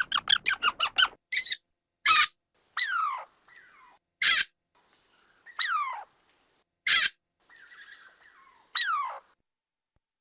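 Squirrel calling: a fast run of about eight short chips, then a series of separate squeaky calls, each falling in pitch, about one every second or so with gaps between.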